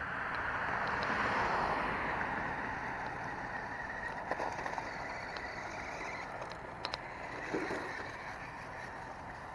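A car passing on the road, its noise swelling and fading over the first few seconds, followed by the thin whine of the Sharper Image Mountain Thrasher RC truck's small electric motor driving on grass, with a few sharp clicks.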